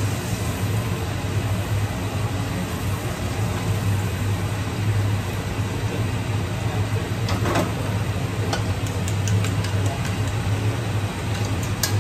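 Steady low hum of a kitchen range hood's extractor fan, with a few light clicks of cookware in the second half.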